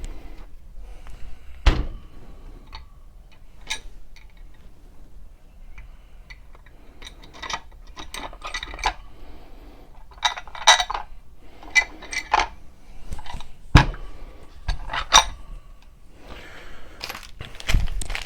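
Metal mounting hardware and parts clinking and clattering on a workbench, in scattered clusters, with a few single sharp knocks as a reloading press is fitted to its mounting plate.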